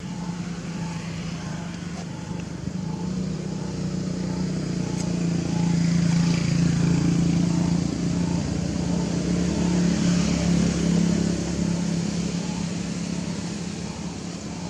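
A motor engine running steadily nearby, with a low hum that grows louder through the middle and then eases off.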